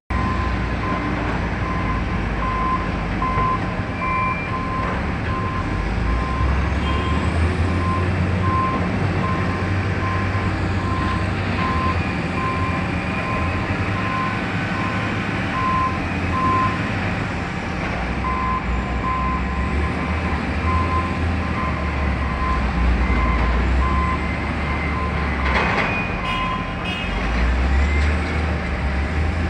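Diesel engines of heavy mining machinery (excavator, wheel loader and dump truck) running and revving up several times, with a reversing alarm beeping steadily, a little over one beep a second. There is a short clatter near the end.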